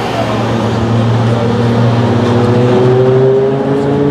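Porsche 911 GT3's flat-six engine pulling away slowly in a road tunnel, its note rising steadily as it gathers revs.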